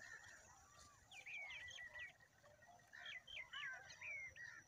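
Small birds chirping faintly: quick, short, sharp notes in bursts, about a second in, again around three seconds in, and once more near the end.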